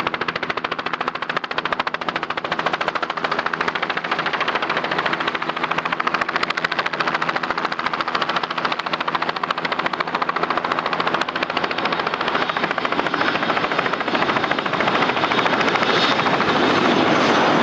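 Helicopter rotor chopping in a fast, steady beat, with aircraft engine noise growing louder over the last few seconds.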